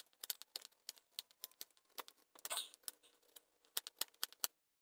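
Carving knife shaving thin cuts off a wooden butter-knife blank: a rapid, irregular run of faint scraping clicks, with one longer scrape about two and a half seconds in, stopping just before the end.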